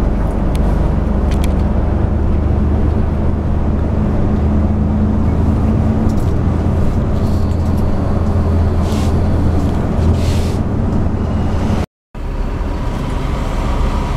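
Intercity bus engine running steadily under way with road noise, heard from inside the cabin as a continuous low drone. The sound drops out completely for a moment about twelve seconds in.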